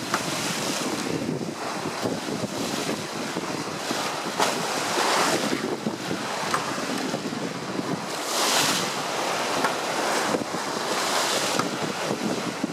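Waves breaking and spray hissing along a sailboat's bow as it pushes through steep standing waves, with wind buffeting the microphone. The hiss surges every few seconds as the bow meets each wave.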